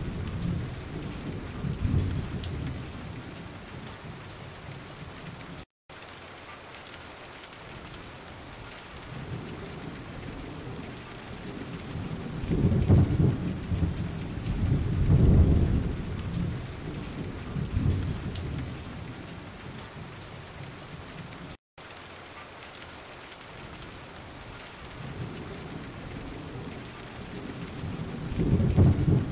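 Gusty wind buffeting the microphone in deep rumbles that swell and fade several times, over a steady hiss of rain.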